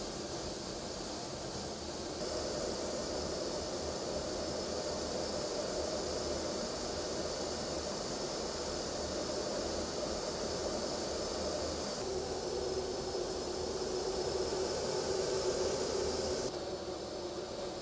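Fighter jet engines running, a steady hiss and rumble with a high whine. The sound changes abruptly a couple of seconds in and twice more later, as the footage cuts between shots.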